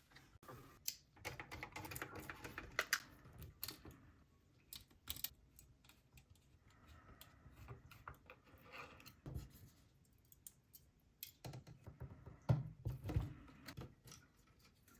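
Hands handling small hard parts and tools of a graphics card: irregular sharp clicks and taps, with stretches of scratchy rubbing about a second in and again near the middle. The loudest clicks come near the end.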